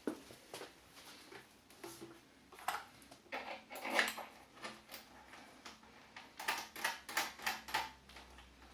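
Light clicks and metallic taps of hands working on the Suzuki VL800's parts around the fuel tank, where a cable is being unclipped. The clicks are scattered, with a louder one about halfway through and a quick run of them shortly after.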